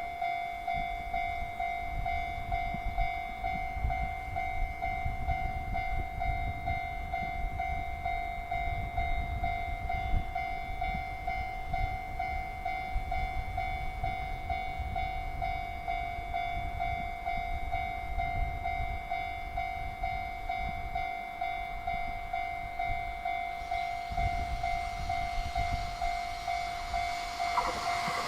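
Level crossing warning bell ringing steadily, one unbroken high tone with overtones, over a low rumble of rail traffic. The crossing stays closed for an approaching train, whose noise begins to build at the very end.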